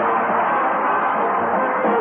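Orchestra music playing as a between-scenes interlude on an old radio-show recording. It is steady and continuous, dull-toned with no treble.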